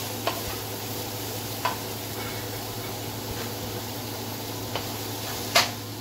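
Sliced vegetables sizzling as they are stir-fried on a high flame in a non-stick kadhai, a wooden spatula scraping through them with a few clicks against the pan and one sharp knock near the end.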